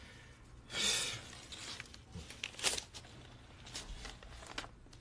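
Paper rustling as the pages of a booklet are handled: one longer rustle about a second in, then a few short ones.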